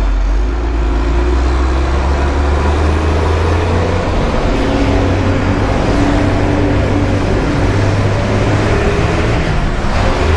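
Bus engine running as the bus drives off, with a steady low drone and road noise, heard from inside the bus. The engine note rises a little about halfway through as it gathers speed.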